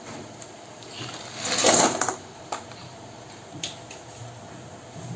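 Lumps of jaggery tipped into an empty stainless-steel kadai: a loud clatter of hard pieces on steel about a second and a half in, then two single sharp knocks as stray lumps land.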